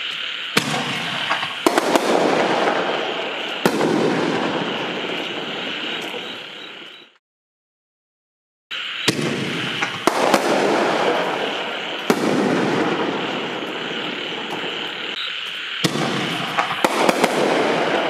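7-inch canister shells from a Miracle Fireworks 'Ginormous Shells' kit going off: sharp launch thumps and loud cracking aerial bursts, several reports in all, over a steady background chorus of frogs. About seven seconds in, the sound fades out into a second and a half of dead silence, then comes back abruptly.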